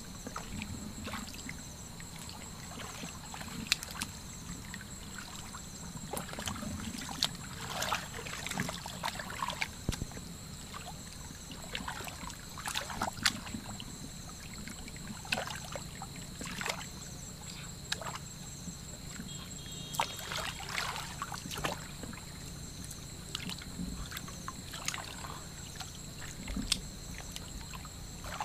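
Hands sloshing and splashing irregularly in shallow muddy water, groping along the bottom for fish.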